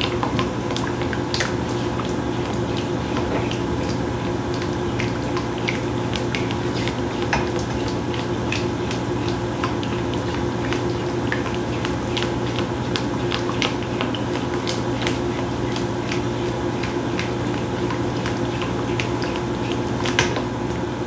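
A utensil stirring a thickening cream of chicken soup in a pot, with frequent light clicks and scrapes of the utensil against the pot over a steady hum.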